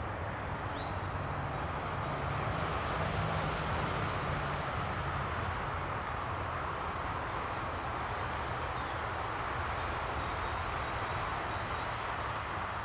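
Steady outdoor background rumble and hiss, with faint, short, high bird calls scattered through it.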